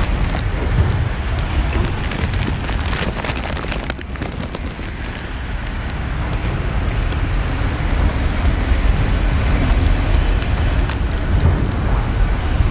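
Autorack freight cars rolling past close by: a steady rumble of steel wheels on rail, with scattered clicks and rattles from the passing cars.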